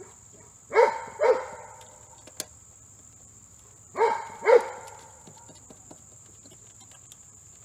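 Golden retriever barking in the background: two double barks, the first about a second in and the second about three seconds later.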